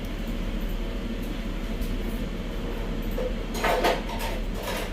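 A steady mechanical hum with a brief clatter about three and a half seconds in.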